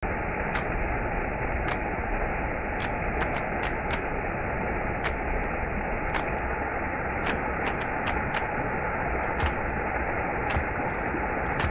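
Steady rush of falling water from a small waterfall, an even roar with sharp ticks scattered irregularly through it.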